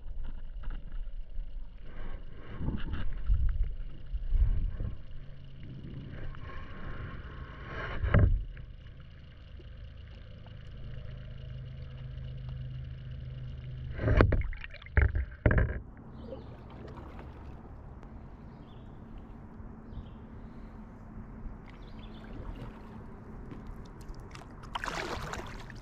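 Muffled water flow heard through a submerged GoPro housing beside a drifting canoe: a low rumble with a few dull thumps, the loudest about eight seconds and fourteen seconds in, and a brief hiss near the end.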